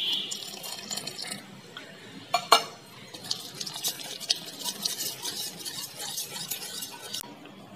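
Wire whisk beating thin chocolate biscuit cake batter in a stainless steel bowl, the tines scraping and clinking against the metal in quick strokes while milk is beaten in. A couple of sharp knocks sound about two and a half seconds in.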